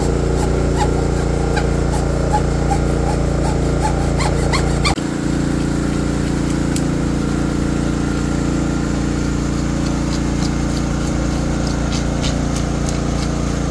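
A small engine running steadily throughout, with scraping and ticking of hand tools over it during the first five seconds; the sound dips briefly about five seconds in.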